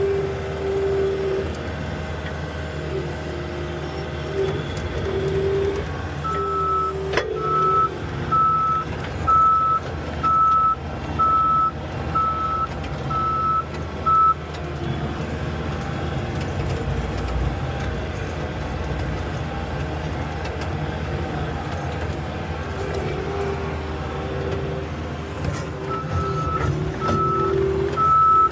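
Skid-steer loader engine running steadily under work, with its backup alarm beeping a little more than once a second for several seconds while it reverses, then starting again near the end. A pitched whine rises and falls with the work, and a single sharp clack sounds about a quarter of the way in.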